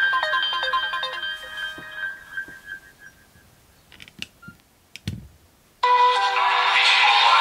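Nokia N70 mobile phone ringtones: one melody's last notes die away, a few sharp clicks and a low thump follow in the near quiet, then the next ringtone starts abruptly and loudly about six seconds in.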